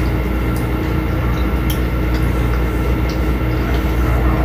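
Steady low droning rumble with a faint hum, like a running machine, and a few faint short clicks over it.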